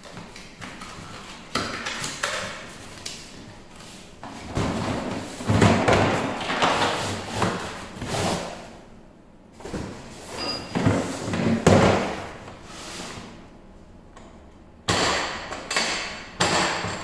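Cardboard box scraping and rustling as a hard plastic tool carry case is slid out of it, with knocks and thumps of the case being handled and set down on the floor. Near the end, a run of sharp clicks as the case's metal latches are snapped open.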